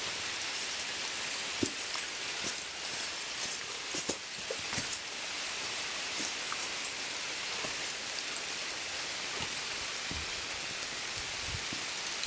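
Heavy rain falling on a river: a steady hiss of rain with a few short, louder knocks of close drops or hits scattered through it.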